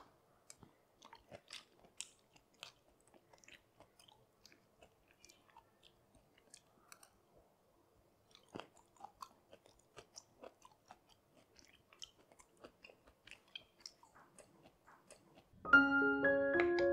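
Close-miked eating sounds of soft, chewy steamed rice cake (chwee kueh) topped with preserved radish: quiet chewing with scattered small mouth clicks and smacks. Piano music starts suddenly near the end.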